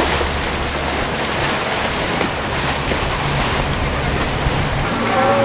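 Outboard motors of a passing center-console boat running with a steady low hum, under the rush of surf and wake wash and wind buffeting the microphone.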